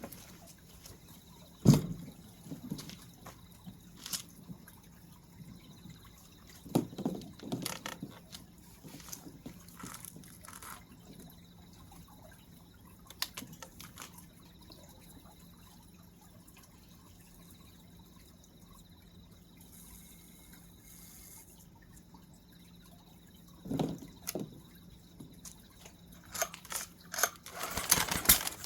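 Scattered, irregular light clicks and knocks over a faint steady hum, with liquid dripping.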